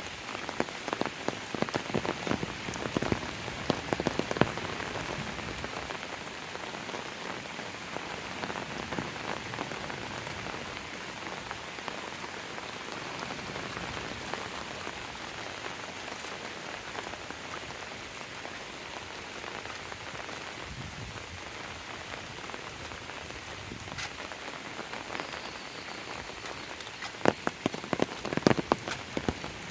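Steady rain falling, an even hiss, with sharp close drop taps that come thick in the first few seconds and again near the end.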